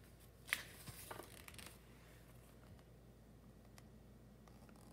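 Pages of a paperback picture book being handled and turned: a brief tap and light paper rustle about half a second in, lasting about a second, then near silence with a faint low hum.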